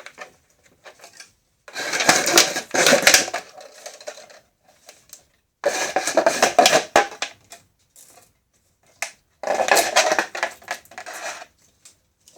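Homemade machine for twisting plastic-bottle strip into rope, running in three bursts of about two seconds each with a busy clattering rattle.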